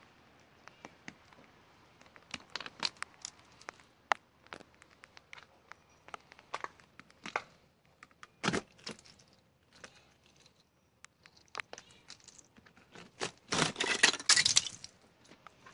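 Ice glazing a car being cracked and picked at by hand: a scattered run of sharp cracks and clicks, with a denser, louder burst of cracking near the end.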